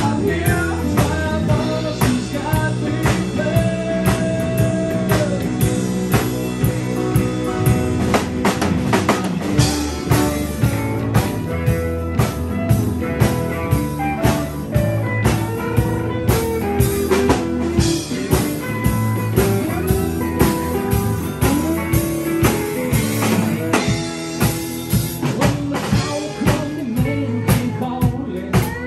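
Live band playing: electric bass, acoustic and electric guitars over a drum kit with a steady beat.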